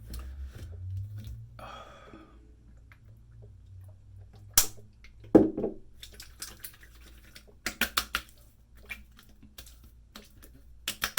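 Aftershave being handled and patted onto a freshly shaved face: scattered light clicks and slaps, with a louder knock about five seconds in and quick runs of pats around eight seconds and near the end.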